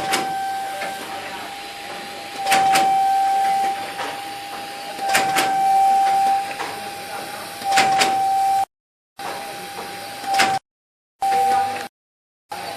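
Soap packaging and labelling machine running in a repeating cycle about every two and a half seconds: each cycle has a sharp mechanical clack and a louder stretch of a steady high whine. The sound cuts out briefly three times near the end.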